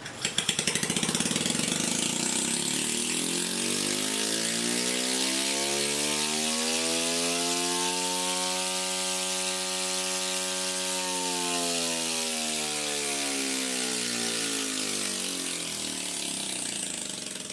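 Opened-up HVAC scroll compressor running, a steady mechanical rattle over a motor hum whose pitch slowly rises and then falls, dying away at the end.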